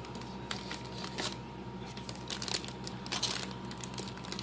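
Train set packaging being handled: plastic and cardboard crinkling and rustling in irregular bursts, over a steady hum.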